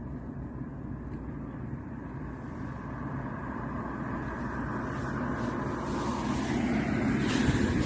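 A passing road vehicle, its steady engine and road noise growing louder as it approaches and loudest near the end.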